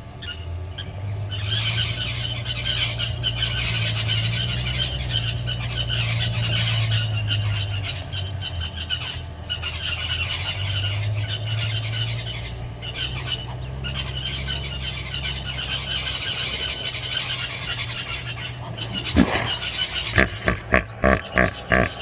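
Steady outdoor background with a low hum and a high hiss. About two seconds from the end comes a fast run of sharp metallic 'tink' calls, about four a second: the alarm call of a blacksmith lapwing guarding its nest.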